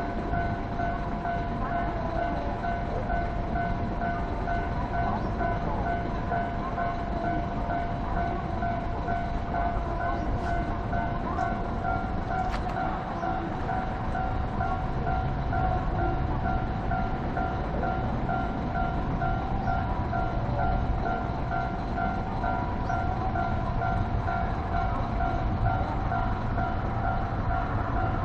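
Japanese level-crossing warning bell ringing with rapid, evenly repeated dings, while a JR 115-series electric train runs over the crossing with a low rumble that grows louder about halfway through.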